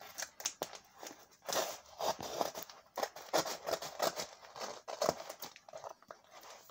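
Scissors cutting along a plastic mailing bag: an irregular series of snips with the plastic crinkling as it is held and cut.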